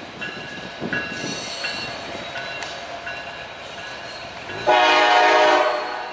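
Diesel locomotive horn sounding one long blast that starts suddenly about three-quarters of the way in and lasts just over a second, the loudest sound here. Before it there is quieter noise from a passing freight train.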